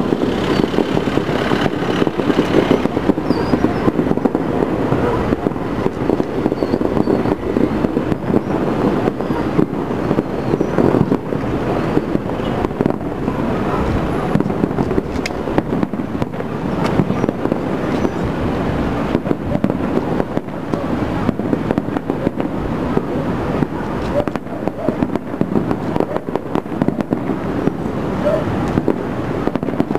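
Distant aerial fireworks display going off without pause: a dense, continuous run of bangs and crackles.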